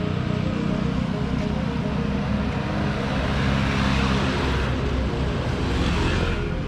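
Street traffic: a steady low engine hum with a motor vehicle passing, its tyre and engine noise swelling to a peak about four seconds in and then fading.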